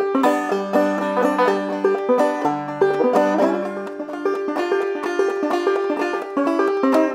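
Banjo played clawhammer style: a lively old-time tune picked out in quick plucked notes over a steady rhythm.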